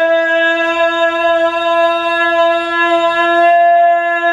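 One loud, long buzzy note blown on a small handheld wind instrument, held at a single steady pitch.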